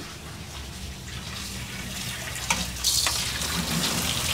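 Tap water running into a stainless-steel sink while herb leaves are rinsed by hand in a metal colander. The splashing grows louder about three seconds in.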